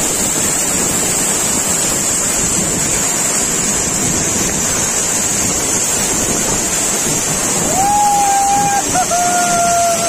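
Waterfall pouring onto rocks and a pool, a loud, steady rush of water. About eight seconds in, a man's voice calls out two long held notes, the second a little lower.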